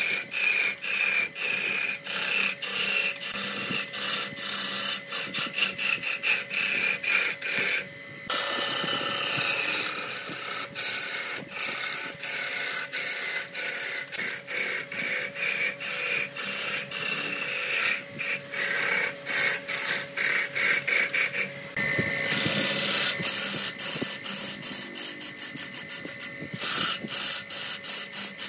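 Wood lathe spinning a spindle blank while a hand-held turning gouge cuts it, a fast rough scraping as shavings peel off, over the steady whine of the lathe motor. The cutting noise rises and falls rapidly as the tool bites, with two brief breaks.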